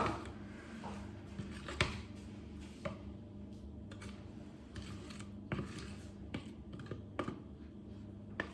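Irregular light clicks and taps of a spoon against a bowl while stirring a masala-and-milk paste, over a steady low hum.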